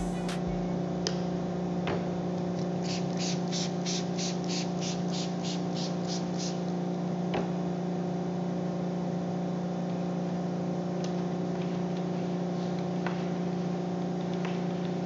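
Steady machine hum of several fixed pitches from running shop machinery. About three seconds in comes a quick run of about a dozen soft hissing pulses, with a few faint clicks scattered after.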